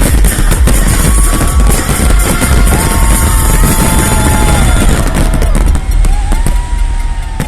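Fireworks going off in quick succession, with deep booms and dense crackling, over a music soundtrack.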